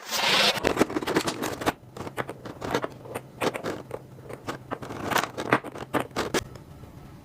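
Plastic and cardboard packaging being handled and unwrapped. It opens with a burst of rustling, then runs into a string of sharp crinkles, clicks and scrapes that die down near the end.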